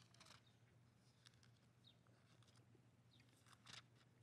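Near silence: room tone with a few faint, brief clicks and rustles.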